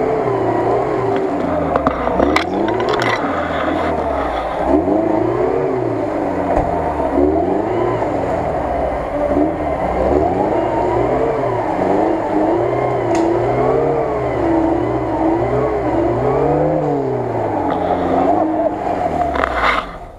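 Lada Niva's engine revving up and down over and over, about once every second or two, as the four-wheel-drive strains to climb out of a deep muddy rut. The engine sound cuts off just before the end.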